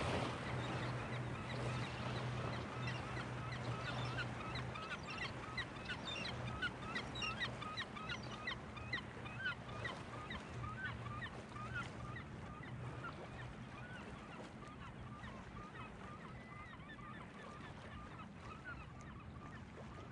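A flock of birds giving many short, rapid honking calls, thinning out over the second half, over a steady low hum.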